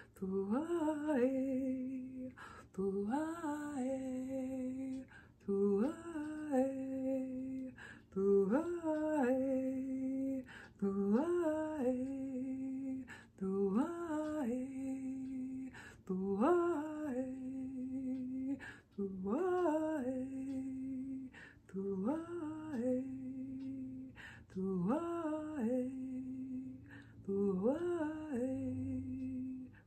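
A woman chanting light-language syllables in a repeated sung phrase, about every two and a half seconds. Each phrase is a quick upward swoop that settles on a long held low note.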